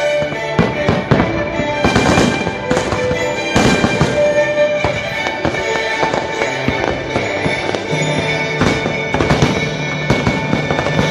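Fireworks bursting in irregular volleys, several pops and booms in quick succession at times, over orchestral music played through loudspeakers for the fireworks show.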